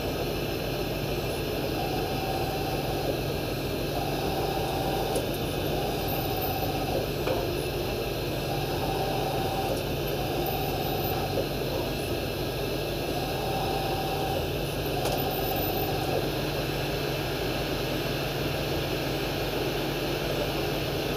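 Machining-centre spindle rigid-tapping a row of holes with a tap in a rigid holder, its speed synchronised with the feed. A steady machine hum and hiss runs throughout, with a short spindle whine coming back about every two seconds.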